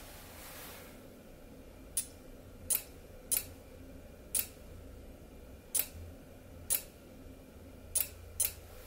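Spark plug sparking on a bench, fired by a VW car ignition coil each time a magnet is passed across a reed switch: about eight sharp, high-pitched snaps at uneven intervals, starting about two seconds in.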